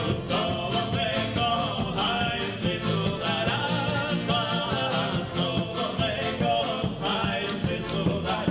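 Live Ukrainian folk music: an accordion carries the melody over electric bass and guitar, with a man singing. A large drum with a cymbal mounted on top keeps a steady beat of about two to three strokes a second.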